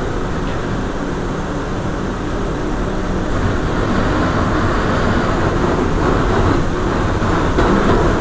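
New York City subway train running: a loud, steady rumble and rush that gets a little louder about halfway through.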